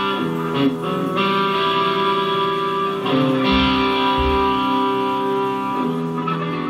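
A rock band playing live on stage: long held chords that change every second or few, with two low bass notes about halfway through.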